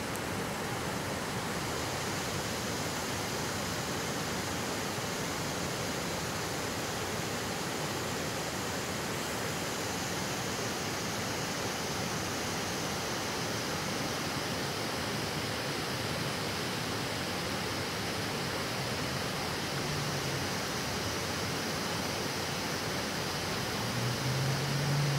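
Steady rush of river water spilling over a weir, an even hiss with no breaks. A short low hum rises briefly near the end.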